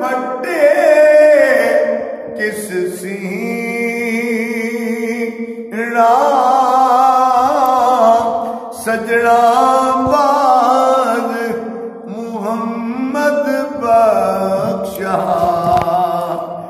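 A man singing a devotional kalam unaccompanied, in long ornamented phrases of a few seconds each, with brief breaks for breath between them.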